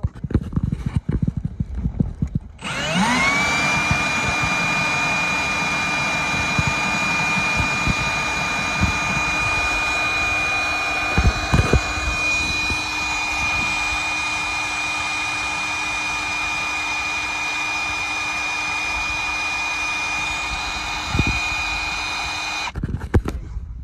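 Milwaukee cordless drill spinning up with a rising whine and running at a steady pitch for about twenty seconds as it drills down through the car's carpeted floor, then stopping. A few knocks come before it starts.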